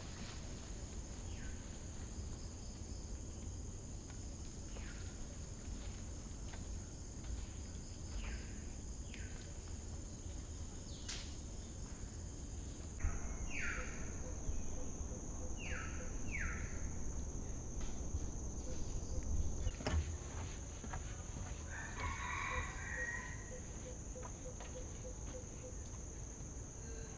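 Tropical forest ambience: a steady high insect buzz throughout, with a bird calling again and again in short falling notes and a fuller burst of calls a little past the middle.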